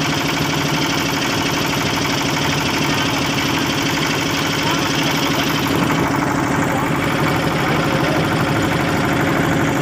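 Motorboat engine running steadily, a dense, even rapid chugging with a steady low hum.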